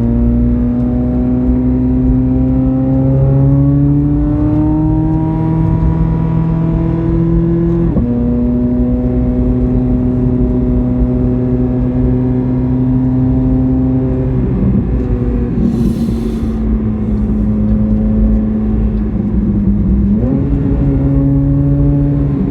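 C8 Corvette Z06's flat-plane-crank V8 under way, its pitch climbing steadily as it pulls through the revs. About 8 seconds in it drops sharply with an upshift, then holds steady. It sags around 14 seconds and jumps up again near the end with a downshift.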